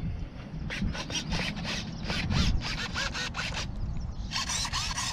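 Servos of an electric RC plane buzzing in quick, repeated short strokes as the control surfaces are worked with the transmitter sticks after the battery is plugged in: a powered-up check that the controls respond. There are two runs of buzzing with a short pause between them.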